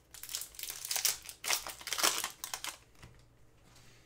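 Foil Upper Deck hockey card pack wrapper crinkling in the hands in quick crackly bursts for nearly three seconds, then stopping.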